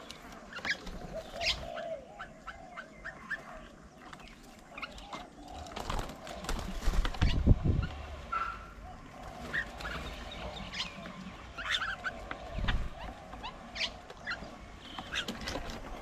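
Birds at a feeding table calling, with scattered short chirps and whistles. A louder low rumbling thud comes about seven seconds in, and a smaller one later.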